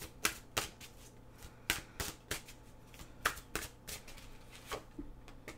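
Deck of oracle cards being shuffled and handled by hand: about a dozen separate sharp card snaps and taps, spaced irregularly.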